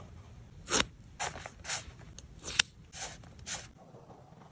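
A brush marker scratching across paper in about seven quick, short strokes at a fairly even pace, with one sharp tick about halfway through.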